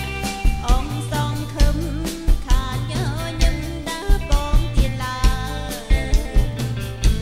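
Live band playing a Khmer song: a woman singing over drum kit, keyboard and horns, with a steady beat of drum hits.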